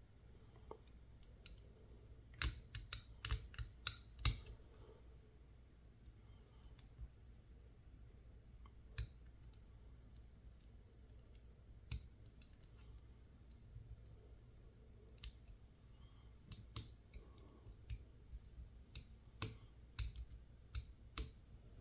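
Scattered small clicks and taps of metal tools and parts being handled while a Goal S pin tumbler lock is taken apart, with quick clusters of clicks a few seconds in and again near the end.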